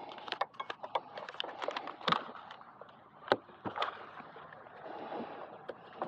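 Hands fitting and pressing Velcro strips onto hard plastic pads: scattered small clicks, scrapes and rustles, with two sharper clicks around two and three seconds in.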